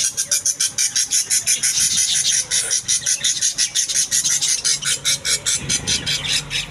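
Budgerigar chick squawking in rapid, rasping pulses, about seven a second, in distress as it is pulled by hand from its clay-pot nest.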